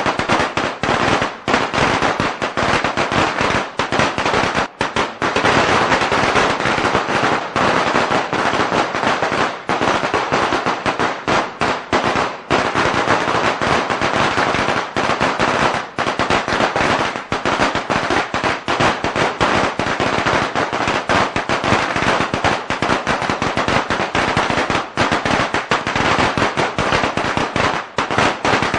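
A long string of firecrackers going off in a continuous rapid crackle of sharp bangs, dense and unbroken.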